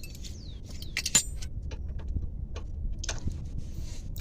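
Hand tools and steel suspension parts clinking and clicking at irregular intervals, with one brighter ringing metal clink about a second in, during work on a car's front wheel hub and ball joint.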